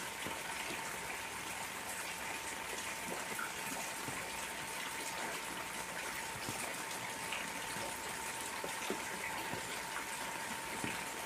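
Heavy rain falling on a garden fish pond: a steady hiss of water with many scattered drop clicks, and a faint steady tone underneath.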